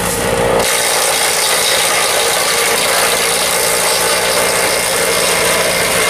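Electric-motor-driven chaff cutter (trash cutter) running loud and steady, its blades chopping green leafy stalks being fed into the chute. The low rumble drops away about half a second in.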